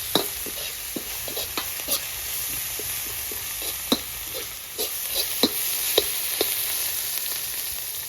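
Onions, spices, garlic, chili and meat frying hard with a steady sizzle, with irregular clicks and scrapes of a utensil stirring against the pan.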